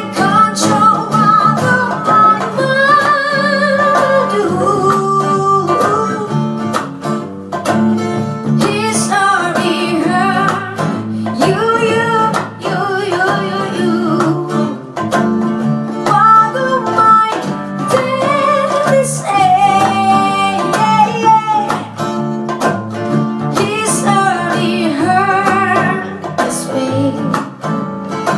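Acoustic band playing live: strummed acoustic guitar with a voice singing a wavering melody over it.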